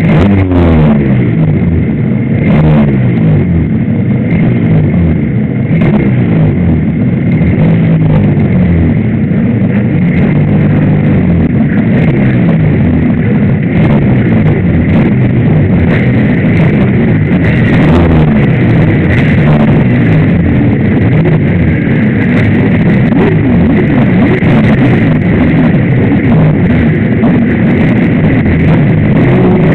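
Suzuki RGV250 two-stroke V-twin engine running at low revs close to the microphone, its pitch rising and falling with repeated throttle changes, with other race motorcycles' engines running alongside.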